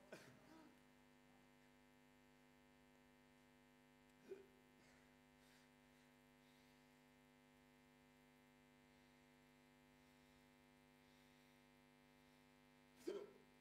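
A person hiccuping: three short hiccups, one at the start, one about four seconds in and one near the end, over a steady low electrical hum.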